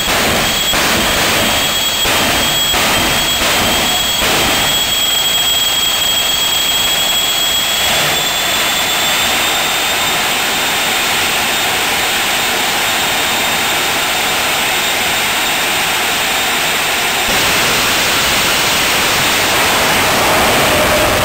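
Jet engine of a jet-powered drag truck running with a loud steady rush and a high whine. The level jumps in short pulses during the first four seconds as flames are blasted up from the engine. About seventeen seconds in it gets louder as the truck runs down the strip with its afterburner lit.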